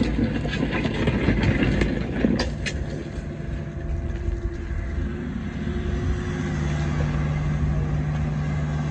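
Cat 305E2 mini excavator's diesel engine running while the bucket scrapes and crunches through rocky soil, with a few sharp clicks of stone. From about three seconds in the scraping stops and a steady engine and hydraulic hum carries on, growing stronger and more even about six seconds in as the boom lifts the load.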